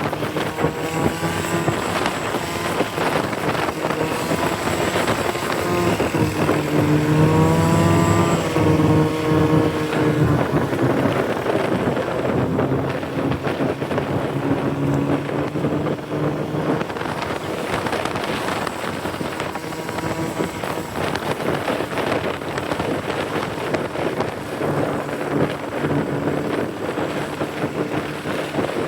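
Snowmobile engine running under way, its pitch rising for a few seconds about seven seconds in, then falling back to a steady drone. Wind noise buffets the microphone throughout.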